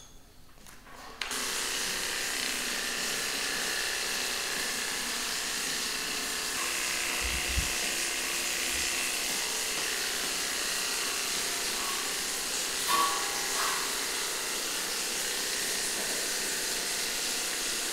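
Cordless electric dog clipper switched on about a second in, then running with a steady motor buzz and hiss. A brief soft thump comes about halfway through.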